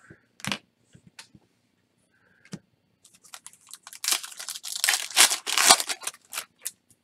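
A few light clicks of cards being handled, then, about three seconds in, the foil wrapper of a 2018 Topps Chrome trading-card pack is torn open and crinkled for about three seconds.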